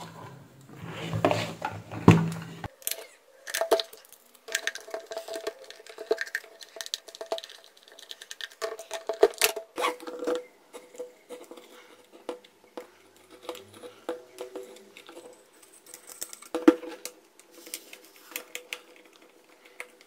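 Irregular clicks, taps and light rattles of a plastic hair dryer housing and a screwdriver being handled as the dryer is taken apart to check its wiring, over a faint steady tone.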